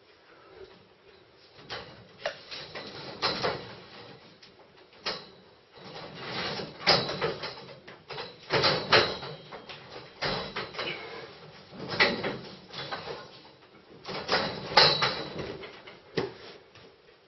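Metal scaffolding tubes knocking and rattling as a person grabs, hangs from and moves through the frame. Clusters of clanks and bumps start about two seconds in and recur several times.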